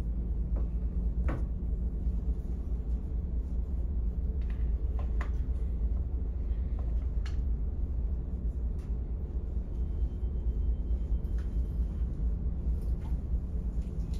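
Steady low rumble of a car ferry's engines, heard aboard as the ship makes its approach to the quay, with a few faint knocks scattered through.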